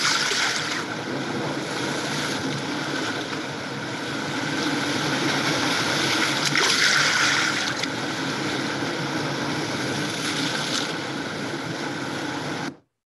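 Steady rush of sea water and waves, a sea sound-effect track, with swells near the start and about seven seconds in. It cuts off abruptly near the end.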